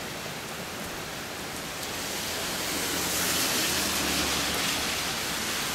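Heavy rain pouring down, a steady hiss that grows louder about two seconds in.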